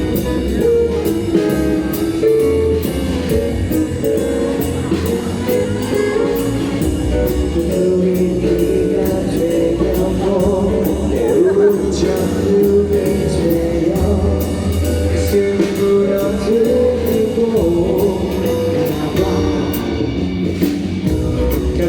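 A live rock band plays the instrumental introduction to a song, with electric guitars over a steady drum-kit beat.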